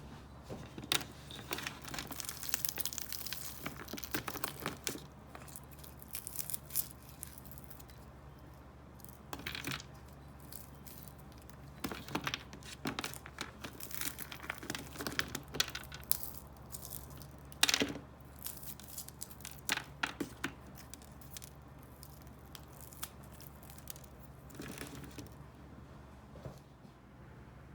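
A sheet of chilled Christmas crack cracker toffee being snapped by hand into pieces: sharp cracking and crinkling in irregular bursts, with short pauses between them.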